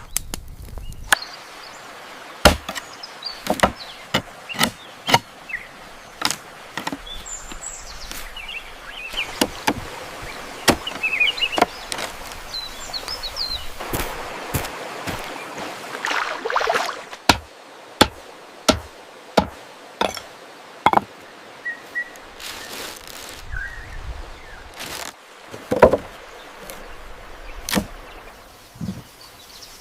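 Repeated sharp chopping strikes, roughly one to two a second, pausing for a few seconds in the middle before starting again, with one especially loud strike near the end. Small birds chirp faintly between the strokes.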